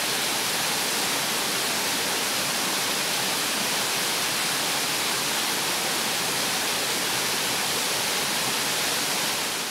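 Steady rushing of water falling at an ice-covered waterfall, fading out near the end.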